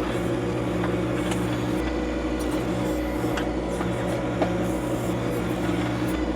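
John Deere 2025R compact tractor's three-cylinder diesel engine running steadily, with a few faint knocks.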